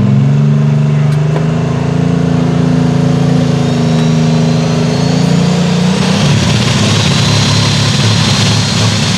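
Light super stock pulling tractor's turbocharged diesel engine holding a steady high idle. About six seconds in it throttles up into a rough, heavy roar with a rising turbo whine as the tractor starts its pull against the sled.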